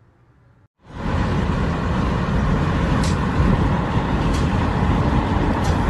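Wind rushing past the open window of a moving car, mixed with road noise: a loud, steady rush that starts suddenly about a second in.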